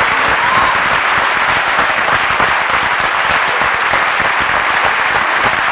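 Theatre audience applauding steadily at the curtain call.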